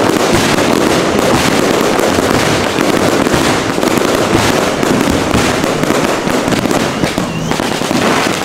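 Aerial fireworks in a dense, unbroken barrage of bursts and crackling.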